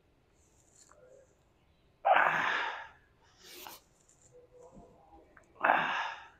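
A man's forceful bursts of breath, twice about three and a half seconds apart, each sudden and dying away within a second, with a quicker, fainter breath after the first.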